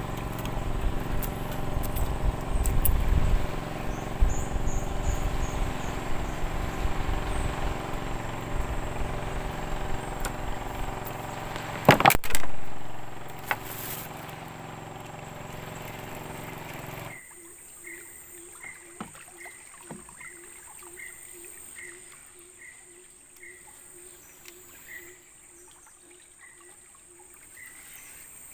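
An engine running steadily, with a loud knock about twelve seconds in. Then the sound cuts off suddenly to a quieter scene: a short chirping call repeating about twice a second over a steady high-pitched insect drone.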